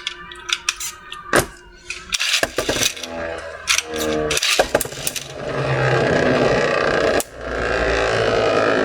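Beyblade Burst tops being handled and clicked into launchers, then launched and spinning and scraping around a plastic stadium. First sharp clicks, then a brief rising whir, then two spells of steady grinding and scraping.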